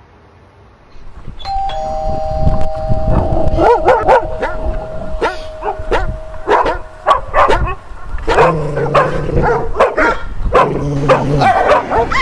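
A two-note ding-dong doorbell chime rings, then dogs start barking again and again, loud and without letup, as the chime dies away.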